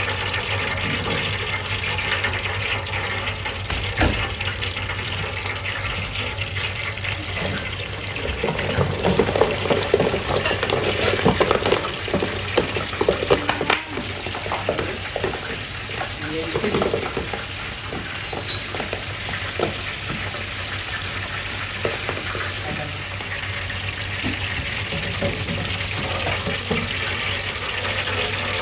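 Prawns deep-frying in a commercial fryer: the oil bubbles and sizzles steadily over a low hum. A louder, busier stretch comes in the middle, with knocks about 4 s in.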